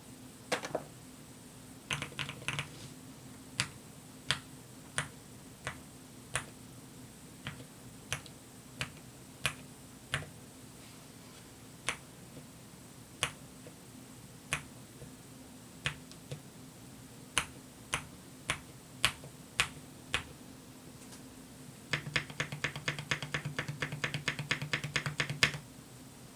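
Keystrokes on a QK65 mechanical keyboard with silent linear switches (TTC Silent Red v3 stems, springs and top housings in Gateron Pro bottom housings): single, spaced key presses, each giving one low, thocky bottom-out sound with no top-out click on release. Near the end comes a fast burst of continuous typing.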